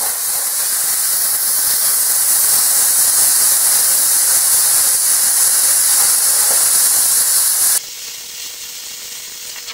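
Air plasma cutter cutting through 1/8-inch steel plate: a loud, steady hiss of the arc and compressed air. About eight seconds in it drops to a quieter hiss as the arc stops and the air keeps flowing to cool the torch's contact tip.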